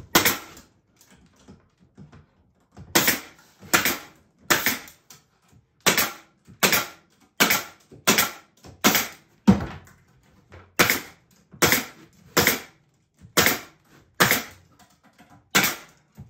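Pneumatic stapler firing staples into the corner joints of a wooden beehive box: one shot at the start, then about two seconds of pause, then a steady run of sharp shots a little faster than one a second, with a brief gap near ten seconds.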